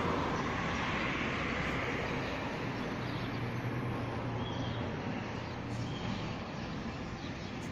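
Steady hum of distant traffic, with a low drone standing out for a couple of seconds around the middle.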